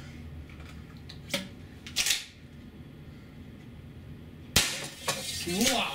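APS CAM870 CO2 pump-action airsoft shotgun: a faint click and a short mechanical rattle of the gun being handled and cycled, then one loud, sharp shot of a 0.68-cal rubber round about four and a half seconds in, followed by a smaller click.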